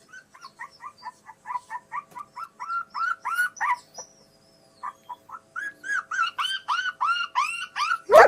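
Phone ringtone of bird-like chirps, about four or five short identical chirps a second, growing louder, breaking off about four seconds in and starting again. A dog gives a loud short yelp near the end.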